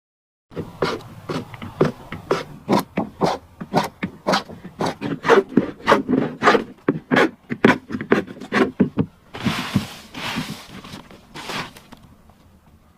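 Hand tools working wood: a run of sharp, irregular knocks, about three to four a second, then three longer scraping strokes about nine seconds in.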